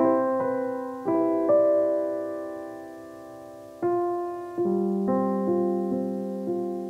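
Background piano music: slow single notes and chords, each struck and left to fade before the next.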